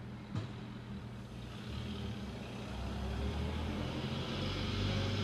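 A vehicle engine running steadily, with a short click near the start and growing louder from about two seconds in.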